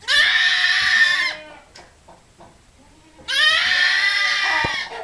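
Goat bleating loudly twice, each call lasting over a second.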